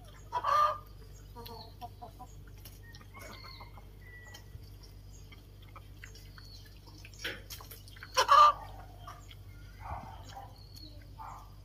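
Domestic hen clucking: two loud, short squawks, one about half a second in and one about eight seconds in, with softer clucks between and near the end.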